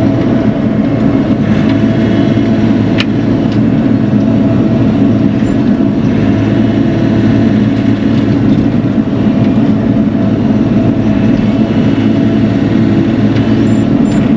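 Bobcat E42 mini excavator's diesel engine running steadily under work, with a single sharp click about three seconds in.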